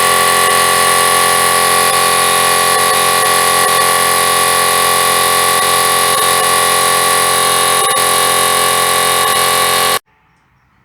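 Electric air compressor running very noisy as it pumps its 50-litre tank and a piggy-backed 40-litre auxiliary tank up to pressure. About ten seconds in it cuts off suddenly: the pressure switch stopping it at about 116 psi (8 bar).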